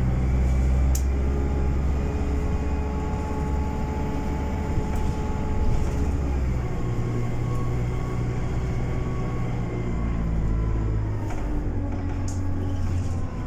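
Bus engine and running gear heard from inside the passenger cabin while the bus drives along: a steady low rumble whose engine note shifts about halfway through and again near the end as the bus changes speed. A few short faint clicks sit over it.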